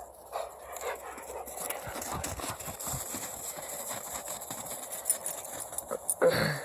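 Two dogs play-fighting: paws scrabbling and bodies scuffling, with short low grunts, and a louder vocal sound falling in pitch near the end.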